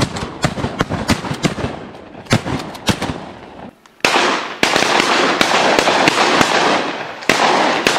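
Rapid volley of shotgun fire from several hunters shooting at a flock of mallards, with many shots close together. About four seconds in, a loud, steady rushing noise sets in, with more shots through it.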